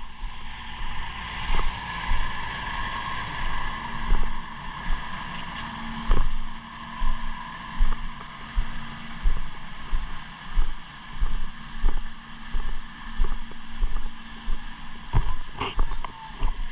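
Footsteps at a steady walking pace: muffled low thuds, a little under two a second, starting about six seconds in, over a steady hiss.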